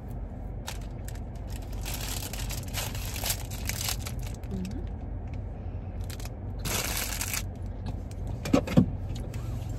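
Plastic food wrapping crinkling in two spells while a bun is handled and eaten, inside a car with a steady low hum. Two short, sharp sounds come near the end.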